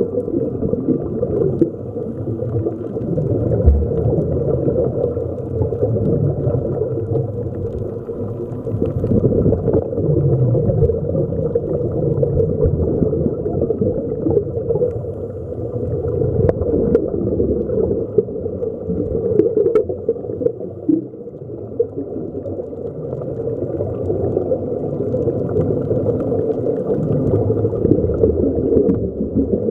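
Underwater ambience heard through the camera underwater: a steady muffled rumble with air bubbling, and a few light clicks.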